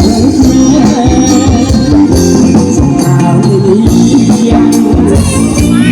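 Khmer romvong dance music playing loudly, with a steady beat.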